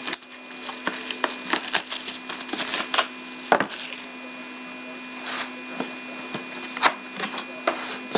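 Crinkling plastic wrap and the handling of a cardboard trading-card box as it is unwrapped and its lid flap opened: a run of scattered crackles, rustles and light taps.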